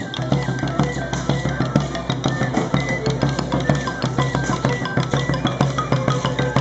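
Live music: drums keep a quick, steady beat under a melody of held notes that step up and down, over a steady low drone.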